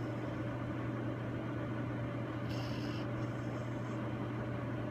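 A steady low mechanical hum, like a small motor running, holding an even level throughout, with a brief high hiss about two and a half seconds in.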